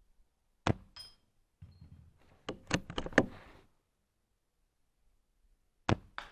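Sharp clicks and metallic clacks from an airsoft SRS HPA bolt-action sniper rifle being fired and handled. One clack rings briefly, a quick run of clacks follows, and two more sharp clicks come near the end.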